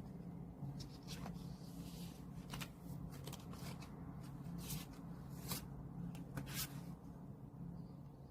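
Album inserts and photocards being handled: a string of short paper and plastic rustles and light clicks, irregular and a few each second, over a steady low hum.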